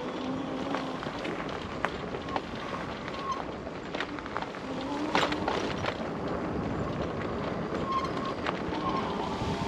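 Electric bike riding over a rough dirt trail: steady tyre and wind noise on the microphone, with frequent clicks and knocks as the bike rattles over the ground.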